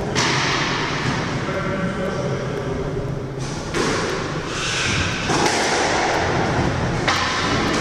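Squash rally: the ball is struck by rackets and thuds off the court walls several times, each hit echoing in the enclosed court.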